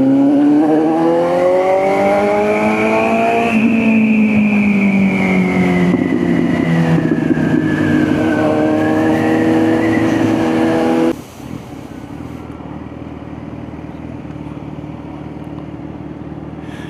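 Kawasaki Z900 inline-four motorcycle engine under way. Its note rises in pitch for a few seconds, sinks slowly and holds steady. About eleven seconds in it cuts suddenly to a much quieter low, steady hum.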